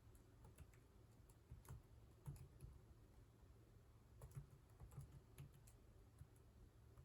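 Faint, irregular keystrokes on a computer keyboard, the clicks coming singly and in short quick clusters as someone types.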